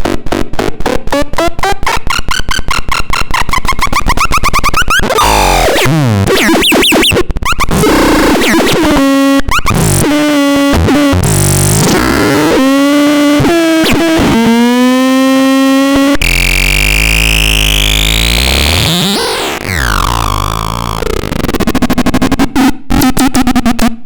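Electronic synthesizer ('č 10030') sounding a stream of raw electronic effects. It opens with rapid, even pulsing, moves through wobbling pitch glides and held tones that jump between steps over a noisy wash, then a long rising-and-falling sweep, and ends in pulsing again.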